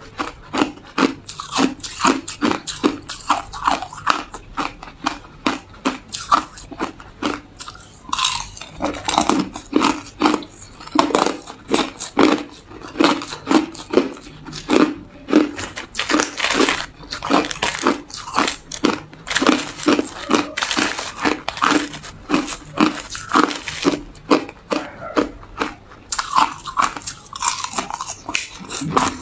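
Hard ice being bitten and chewed: a steady run of sharp, crisp crunches, several a second.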